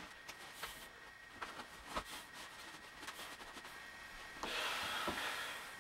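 Faint rustling and soft knocks of hands pressing and handling a thick futon mattress's fabric cover, with a louder rustle about four and a half seconds in.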